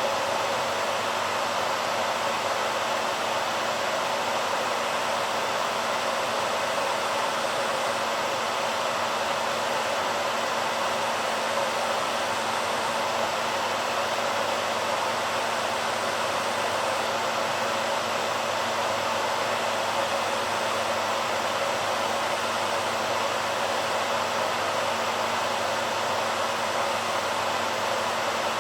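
BaByliss hairdryer running steadily: an even rush of air with a low hum underneath.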